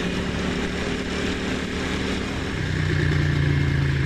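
Ducati Monster's L-twin engine running at low revs in a steady note that drops slightly in pitch and grows a little louder about two and a half seconds in.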